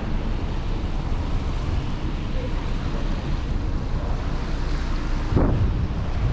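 Wind buffeting the camera's microphone on a cruise ship's open deck: a steady low rumble, with a stronger gust about five seconds in.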